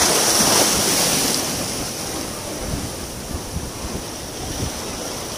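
Waves washing on a shore, one surge swelling at the start and easing off over the first second and a half, with wind buffeting the microphone.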